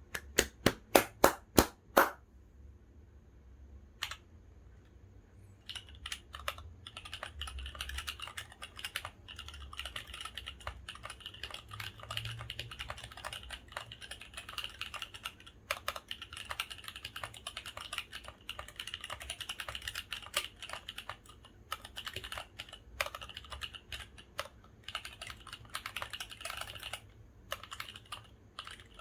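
Mechanical keyboard with Kailh Cream linear switches and PBT Cherry-profile keycaps on a gasket-mounted, foam- and silicone-dampened Mark 65 board: seven loud single keystrokes at about four a second, one more a couple of seconds later, then steady fast typing.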